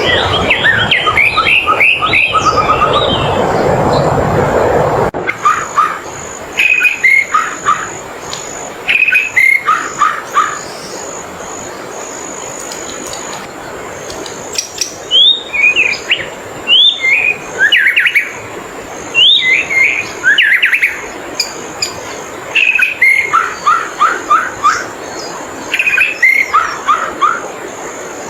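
A wild songbird singing short phrases of quick rising and falling notes, repeated every two to three seconds, over a steady high-pitched tone. A low rumble fills the first five seconds and cuts off suddenly.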